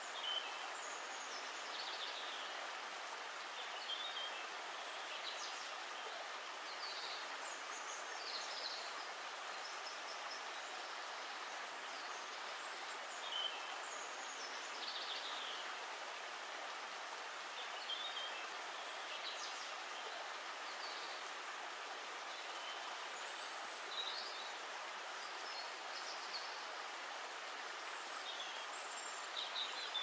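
River water flowing in a steady rush, with short high bird chirps every second or few.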